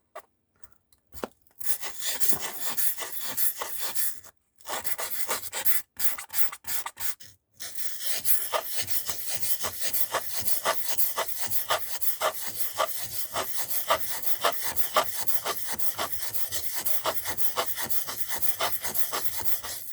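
Steel scissor blade scraped back and forth across an oiled sharpening stone, a gritty rubbing in quick short strokes. The strokes come in runs with short breaks in the first half, then go on without a break.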